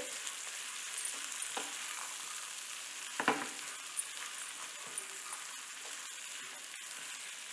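Green tomato slices, dals and chillies sizzling steadily in hot oil in a nonstick pan while a spatula stirs them, with short scrapes and knocks of the spatula against the pan, the loudest a little over three seconds in.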